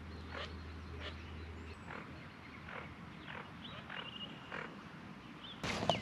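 Faint short rough calls coming about twice a second, with a few brief high whistles: Eurasian teal calling at close range. A louder rustle near the end.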